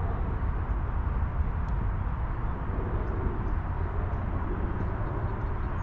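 Wind buffeting the microphone: a steady, ragged low rumble.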